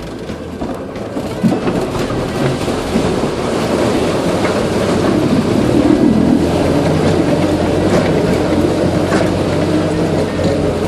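Land Rover Series III engine pulling steadily while the vehicle ploughs through water, throwing a bow wave. A loud rushing, splashing noise builds about a second and a half in and carries on over the engine's low hum.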